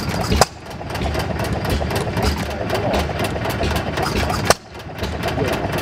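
Red Deutz stationary engine running with a steady low chugging. It is broken twice by a sharp, loud bang, about half a second in and again about four and a half seconds in.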